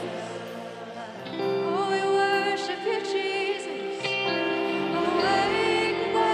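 Contemporary Christian worship music: a band with a sung vocal line, steady and continuous.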